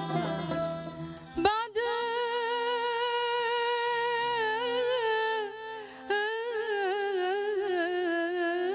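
Female voice singing a long, wordless melisma of an Algerian istikhbar in the Aarak mode: a quick rise into a held, ornamented note, a short break about five and a half seconds in, then the line resumes with more winding turns. It opens over plucked-string accompaniment that drops away about a second and a half in.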